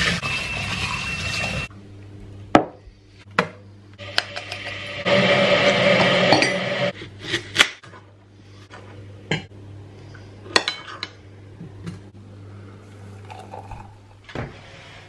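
Kitchen sounds: a sink tap running for the first second and a half, then scattered clinks and knocks of cutlery on crockery, including a knife slicing apple on a plate. There is a louder stretch of rushing noise from about five to seven seconds in.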